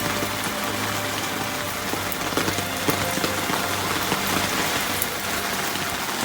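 Heavy typhoon rain pouring down steadily, with many individual drops pattering on hard surfaces.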